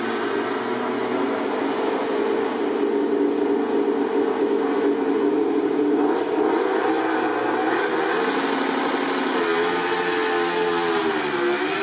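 Honda RC213V MotoGP bike's V4 engine held at high, steady revs for a practice start, then near the end the revs dip and climb again as the clutch is released and the bike launches away.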